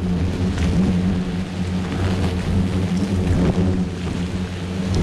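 Hornets swarming out of their paper nest to attack, their wings making a steady low buzzing hum.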